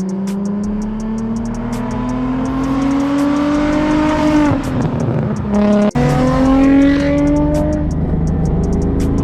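Car engine accelerating through a nearly straight-piped exhaust: Berk non-resonated test pipes into a single Megan Racing muffler. The revs climb for about four seconds, drop at a gear change, then climb again and level off.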